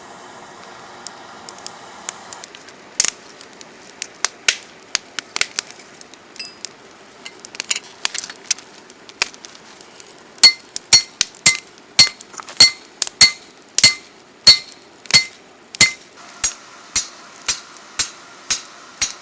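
Hand hammer striking hot rebar on a metal anvil block, with a ringing clink on each blow. The blows are irregular at first, then settle into steady strokes about twice a second from about halfway through. A steady hiss stops about two and a half seconds in, before the hammering starts.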